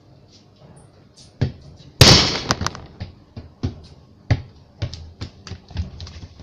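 A football being kicked and bouncing on a concrete floor and walls: a string of sharp thumps, the loudest a bang with a short ringing tail about two seconds in, then lighter knocks about twice a second.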